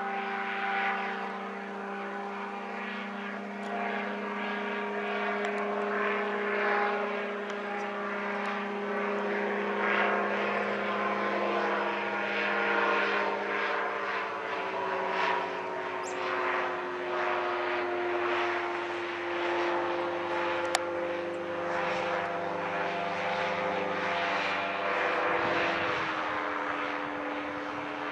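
Powered parachute's engine and propeller droning overhead on final approach. The drone holds steady while its pitch slowly falls, then drops a step further near the end.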